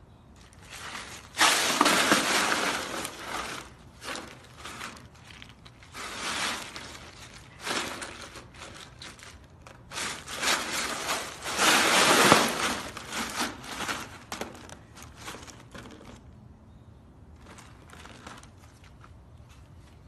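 Ice cubes in a plastic paddling pool clattering and crunching as a husky lying in them shifts and rolls. The sound comes in several irregular spells, the loudest about two seconds in and again around twelve seconds.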